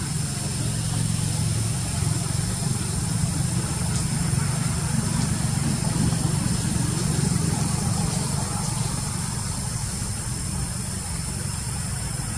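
Steady low engine-like rumble, swelling slightly in the middle, under a steady high-pitched drone.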